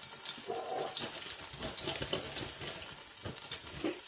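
Hot oil lightly sizzling around cardamom pods and a few vermicelli strands in a steel pot, with a steady hiss and scattered small crackles.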